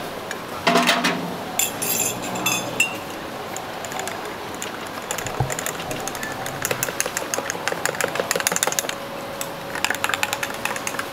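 Clinking and clattering of cups and utensils at a street drink stall, with a fast run of small clicks from about six and a half to nine seconds in, over steady background noise.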